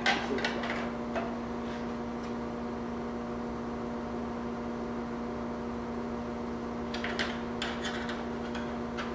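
Steady machine hum from workshop equipment, with a few light clicks and taps of a sheet-metal patch being handled against the car body at the start and again a few seconds before the end.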